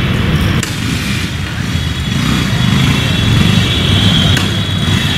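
Steady low rumble of road traffic and running motor-vehicle engines, with a faint high steady whine over it.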